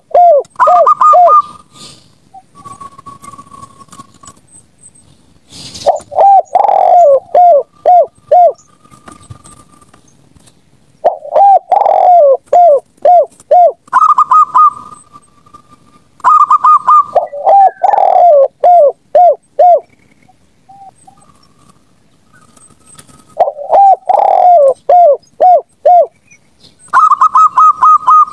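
Zebra doves and spotted doves cooing in repeated bursts. Each burst is a quick run of higher notes followed by several lower, falling coos, with pauses of a few seconds between bursts. A single sharp click comes just before the second burst.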